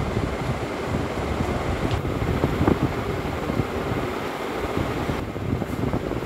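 Steady low rumble of moving air buffeting the microphone, with a faint steady whine above it.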